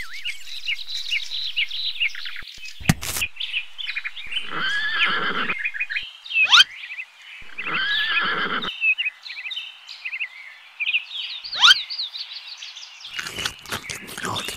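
Horse whinnying twice, each call about a second long, over a steady scatter of high bird chirps. Two short rising sweeps cut in between and after the whinnies, and a click comes about three seconds in.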